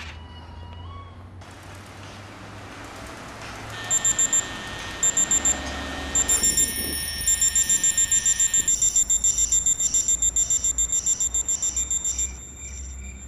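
Electronic alarm clock beeping. It starts about four seconds in with short clusters of quick high-pitched beeps, turns into steady rapid beeping, and cuts off near the end. For the first half it sounds over a steady hiss.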